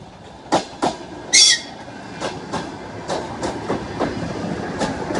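ER9M electric multiple unit passing close by, its wheels clicking over rail joints in quick pairs as each bogie goes over, over a rumble that grows as the cars pass. A brief high-pitched squeal about a second and a half in is the loudest moment.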